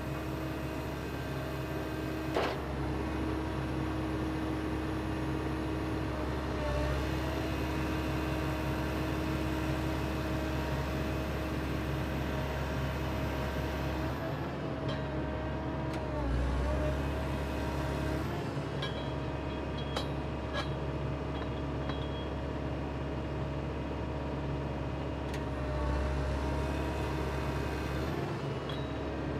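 Geoprobe 8040DT track-mounted drill rig's engine and hydraulics running steadily, the pitch dipping briefly three times about ten seconds apart. A sharp click about two seconds in.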